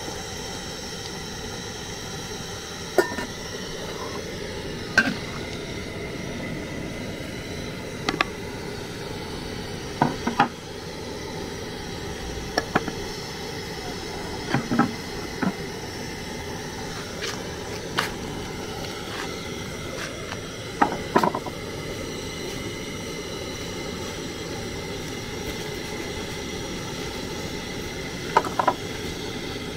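Scattered metal clanks and knocks, some in quick pairs, from an aluminium pot and kitchen utensils against a clay cooking pot, over a steady hiss of palm nut soup simmering.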